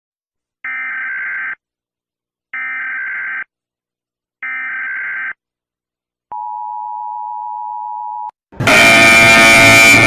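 Emergency Alert System SAME header tones: three short data-burst squawks about a second each, then a steady attention tone of about two seconds. About 8.5 seconds in, loud music with guitar cuts in and is the loudest sound.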